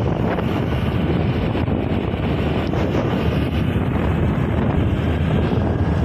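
Wind buffeting the microphone of a moving vehicle, a steady rumbling rush with road and engine noise beneath it.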